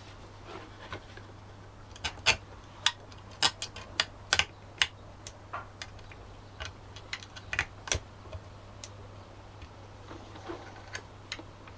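Irregular light clicks and taps of hand work with small parts and tools, thickest in the first two-thirds and thinning out near the end, over a faint steady low hum.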